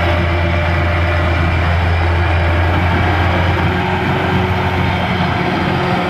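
Kubota DC-93 combine harvester's diesel engine running steadily under load as the crawler machine works through deep mud, a loud, even drone with a strong low hum.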